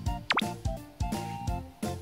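Upbeat background music with a steady beat of low thumps and short pitched notes. A quick sliding-pitch sound effect comes about a third of a second in.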